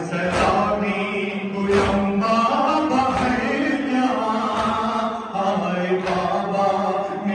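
A crowd of Shia mourners chanting a noha (lament) together, with a loud collective matam stroke, hands beating chests in unison, about every second and a half.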